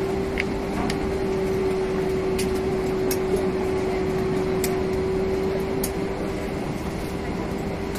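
Airbus A320 cabin on the ground: steady rush of the air-conditioning with a single even mid-pitched whine held throughout, and a few faint ticks.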